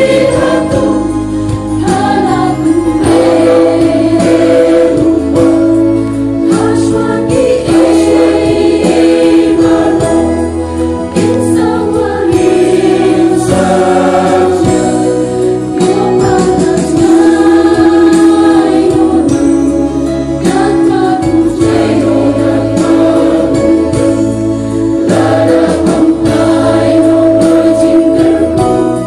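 Mixed choir of women's and men's voices singing a gospel song in Khasi in several parts, with notes held and changing continuously.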